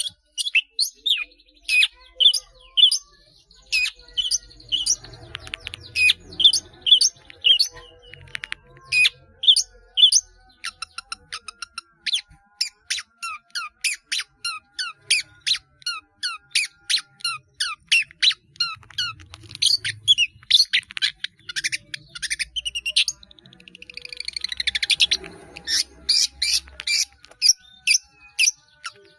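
Long-tailed shrike (cendet) singing: a fast, varied run of short, sharp high notes and chatter, with mimicked calls of other birds worked into the song. A harsher, rattling passage comes about twenty-five seconds in.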